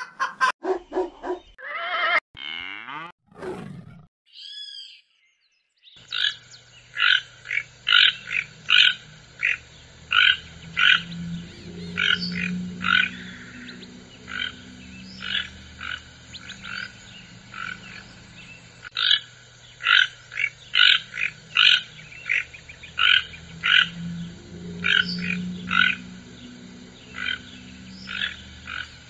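A short electronic intro of sweeping tones, then, after a moment of silence, a toco toucan calling: short hoarse calls repeated about twice a second in irregular runs with brief pauses.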